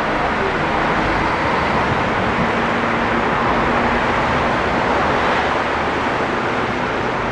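Diesel-electric freight locomotives (a GE C30-7MP and two C36-7s) approaching from a distance with a train of empties, heard as a steady noise with a faint hum coming in about two seconds in.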